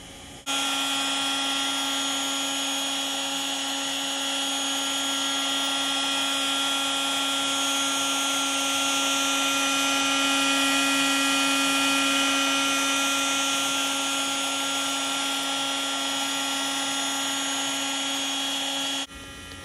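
MPCNC Lowrider 2 CNC router running steadily, its spindle whining as a 1/8 inch ball-nose bit carves a relief into foam. The sound starts abruptly about half a second in and cuts off just before the end.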